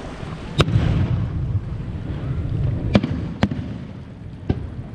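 Aerial firework shells bursting: four sharp bangs, two of them close together in the middle, with a low rolling rumble after the first.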